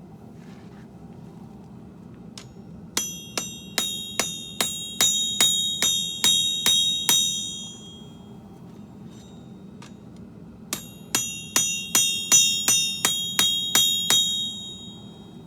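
Hand hammer striking steel on an anvil in two runs of about a dozen blows each, roughly three blows a second, every blow ringing out metallically. A steady low hum runs underneath.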